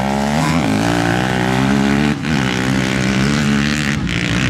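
Sport quad and dirt bike engines revving hard as they accelerate away in a drag race, the pitch climbing, dropping sharply about two seconds in at a gear shift, then climbing again.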